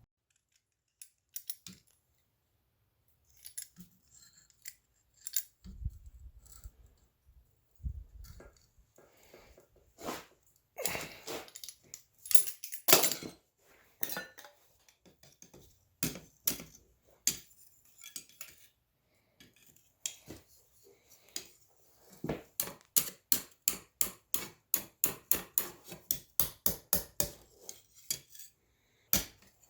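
Quarter-inch steel round stock being worked by a blacksmith: scattered metal clinks and knocks with a couple of dull thumps, then from about two-thirds of the way through a steady run of hammer blows, about three a second.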